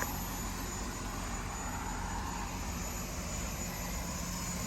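Steady mechanical hum of background machinery, even and unchanging, with a faint high whine over it.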